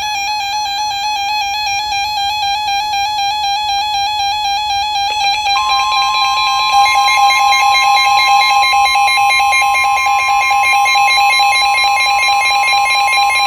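Emergency Alert System attention signal: a loud, steady electronic alert tone, with a second, slightly higher steady tone joining about five seconds in.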